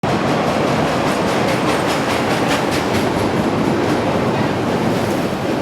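Steady running noise of a train heard from aboard, with a few clicks of the wheels over the rail joints.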